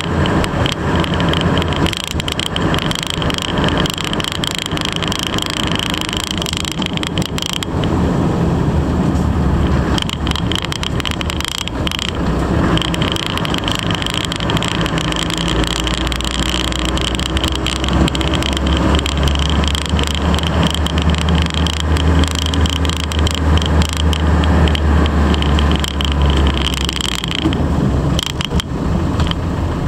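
1997 Land Rover Defender 90 Wolf's 2.5-litre 300Tdi turbo-diesel engine and Remus exhaust heard on board while driving, with road and wind noise. The engine note shifts pitch a few times and eases off near the end.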